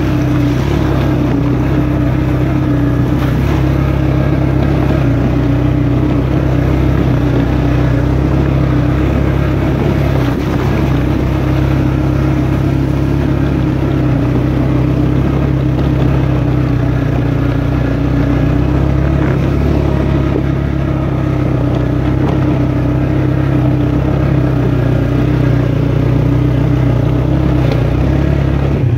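Suzuki Ozark ATV's single-cylinder engine running at a steady speed on a dirt trail, heard close up from on the machine.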